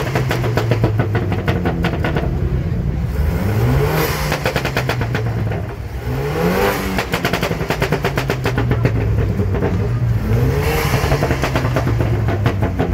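Porsche 911 GT3's flat-six engine revved hard several times while standing, its pitch climbing and dropping with each rev. Between the revs the exhaust gives a rapid rattle of pops.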